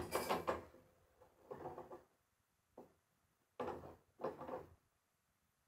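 A few short, muffled knocks and scrapes, spaced out over the seconds, from hands working at a steel beam resting on a lift.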